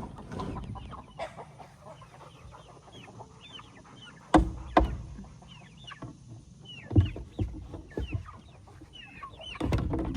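A flock of chickens clucking, with short high calls throughout. A few sharp thumps stand out, two close together about four seconds in and another about three seconds later.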